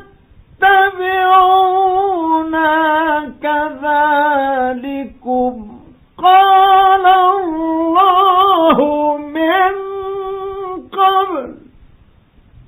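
A male Quran reciter's voice chanting in the melismatic tajweed style: long ornamented held notes with vibrato, stepping down in pitch, with a short breath pause about six seconds in, then a long phrase closing on a falling glide near the end. This is an old radio broadcast recording.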